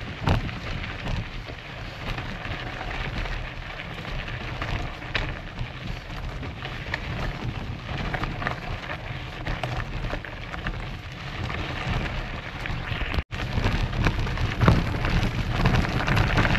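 All-mountain enduro mountain bike rolling over a rough, stony dirt track: a busy crackle of knobby tyres on loose gravel and dry leaves, with many small knocks and rattles from the bike over the bumps. The sound cuts out for an instant about thirteen seconds in.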